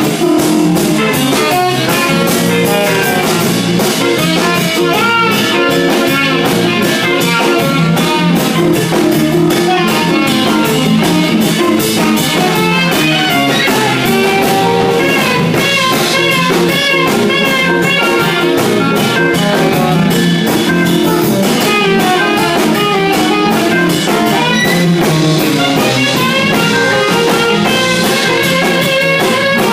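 Blues band jamming: guitar playing over a drum kit, with bent, wavering notes about halfway through.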